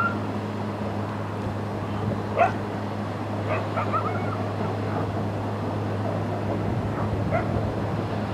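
A dog barking and yipping a few times, in short calls about two seconds in, a quick cluster around four seconds, and once more near the end. Under it runs a steady low hum with an even rushing noise.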